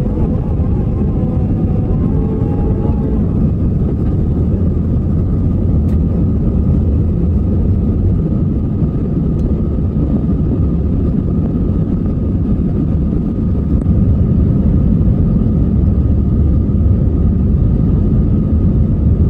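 Cabin noise of a StarFlyer Airbus A320 climbing after takeoff: a steady, dense rumble of engines and airflow with a faint high steady tone above it, growing slightly louder in the last few seconds.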